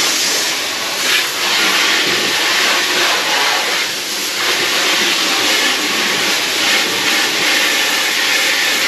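Garden hose spray nozzle jetting water onto vinyl boat seat cushions: a loud, steady hiss of spray, rinsing off hydrogen peroxide cleaner.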